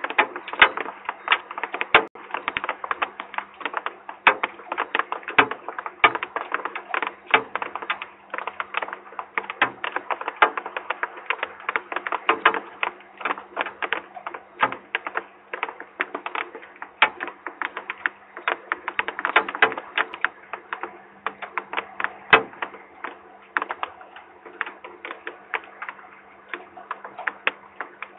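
Rain tapping on a falcon nest box: a dense, irregular run of sharp taps, several a second, over a steady low hum.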